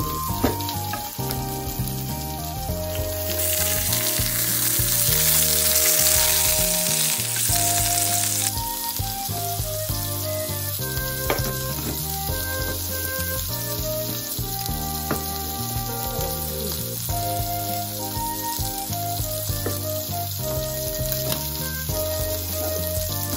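Pork-wrapped potato salad rolls sizzling as they fry in a pan. The sizzle is loudest from about three to eight seconds in and plays under background music, with a few light knife taps on a cutting board later on.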